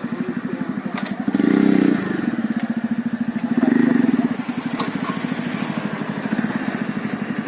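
TVS Radeon 110 cc single-cylinder four-stroke motorcycle engine running at a steady, even pulse, the thumping beat its owner likens to a Bullet. It swells louder twice, about a second and a half in and again around four seconds.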